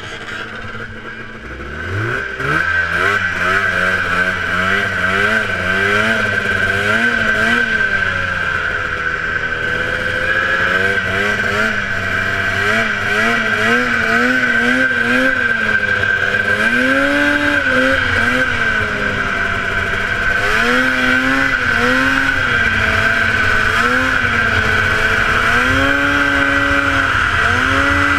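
A 1977 Polaris TX-L snowmobile's two-stroke engine, heard from on the sled, revs up hard about two seconds in off the start. It then rises and falls in pitch again and again as the throttle is worked around the ice oval, with a steady high whine running under it.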